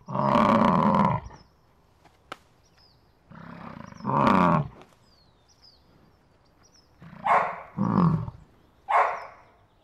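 Bison bellowing: a long bellow at the start, another about four seconds in, then three shorter calls near the end, over faint birdsong.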